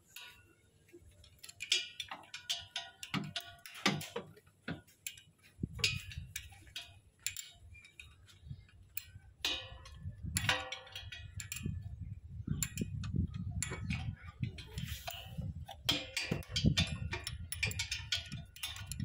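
Metal tools clicking and tapping against the exposed rocker arms and valve gear of a Sonalika DI-50 tractor's diesel engine as the rockers are adjusted. From about six seconds in there is also a low, irregular rumble.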